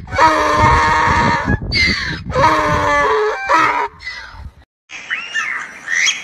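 Goat bleating loudly, several long, drawn-out calls one after another. After a short break about four and a half seconds in, quieter, short chirping calls begin.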